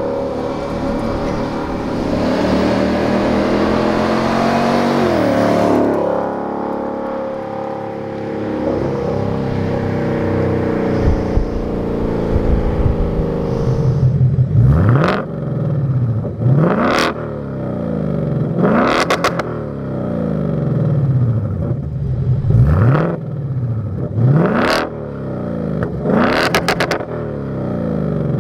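2024 Ford Mustang Dark Horse's 5.0 L Coyote V8 through an AWE SwitchPath cat-back exhaust: it accelerates away, the engine note climbing for about five seconds before dropping off. Then, standing, it is revved six times about two seconds apart with the exhaust valves in sport mode, each rev rising sharply and falling back to idle.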